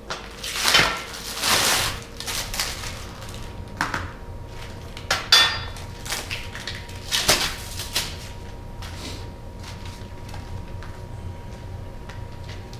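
Cab-kit parts and hardware being handled and set down: irregular clinks, knocks and rustles, with the loudest near the start, about five seconds in and about seven seconds in. A steady low hum runs underneath.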